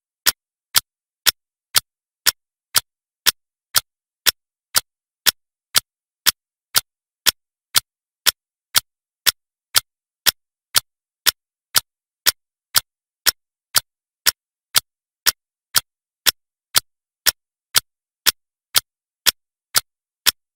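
Clock tick-tock sound effect: sharp, evenly spaced ticks, two a second, each the same loudness with silence between.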